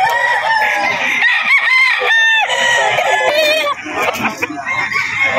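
Several gamecocks crowing over one another, overlapping crows at different pitches with clucking in between.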